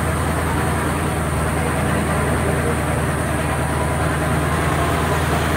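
Monster truck's engine running at a steady low drone as the truck drives along, heard from on board.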